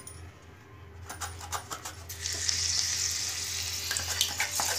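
Raw banana slices cut by a hand slicer dropping straight into hot oil in a kadhai: a few clicks, then about two seconds in a steady sizzle of frying slices, with scattered clicks through it.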